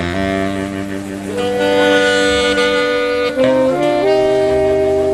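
Saxophones playing live in a small band, holding long chords of several notes together, moving to a new chord about three and a half seconds in.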